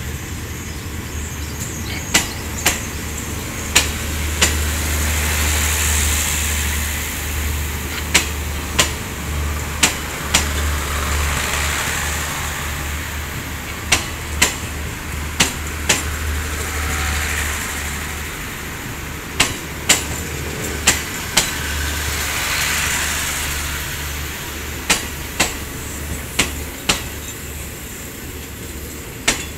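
Passenger train carriages rolling past. Their wheels click sharply over a rail joint, usually in pairs as each bogie crosses, over a steady rolling rumble and low hum. The rumble swells every few seconds as each carriage goes by.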